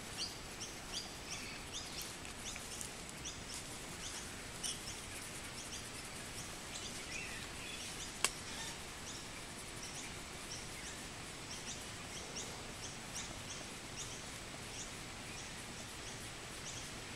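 A bird chirping repeatedly, short high chirps about two to three a second over steady outdoor background noise, with a single sharp click about eight seconds in.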